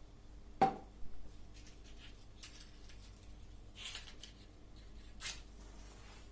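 Small handling noises: a sharp click about half a second in, a few lighter clicks just after, and two brief rustles later on, over a faint steady hum.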